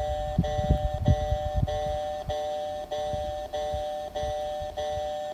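Japanese railway level-crossing warning bell ringing, an electronic two-tone 'kan-kan' repeating about one and a half times a second. There are low rumbling thumps under it in the first two seconds.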